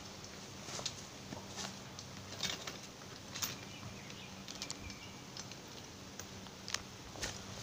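Irregular light clicks and rustles as a steel chain is handled and tightened around a tree trunk, over a faint steady hum.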